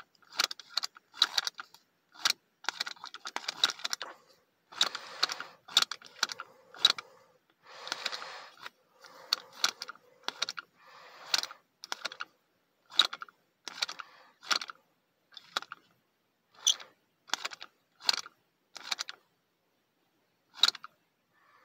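Hard plastic clicking and clacking from a small Mighty Thor Happy Meal figure as its action feature, the hammer arm, is worked over and over. The clicks are sharp and come singly or in quick little runs, with a few brief scrapes in between, and they grow sparser near the end.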